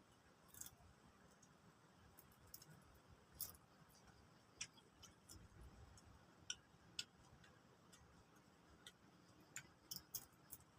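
Faint, irregular sharp clicks and crunches of someone eating fried rice with fried grasshoppers, about a dozen over the stretch, with near silence between them.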